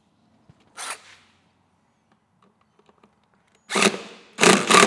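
Cordless drill driving a screw into a boat's transom to start a trim tab bracket screw. It comes in loud and sudden near the end, then runs in pulses of about four a second.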